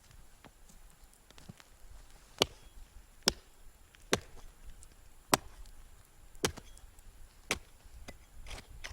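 Sharp knocks on lake ice, about one a second, six loud strikes with lighter clicks between: the ice being struck to test it before stepping out onto it.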